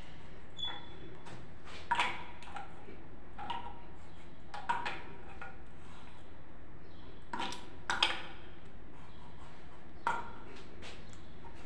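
An adjustable wrench clinking against the chrome coupling nuts of a wall-mounted shower mixer as they are tightened onto the wall fittings. There are several sharp metallic clinks a second or two apart, the loudest about eight seconds in.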